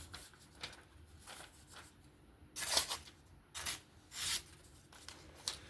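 QSP Penguin folding knife's 35VN steel blade making slicing test cuts to check its edge: three or four short, noisy cutting strokes, starting about halfway through.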